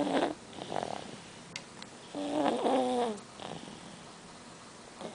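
An eight-month-old baby snoring: a pitched, slightly falling snore with each breath, about two and a half seconds apart.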